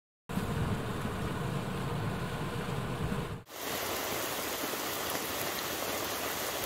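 Outdoor rain-and-wind ambience. It comes in suddenly as an even hiss with a heavier low rumble, breaks off abruptly about three and a half seconds in, then runs on as a lighter, even hiss.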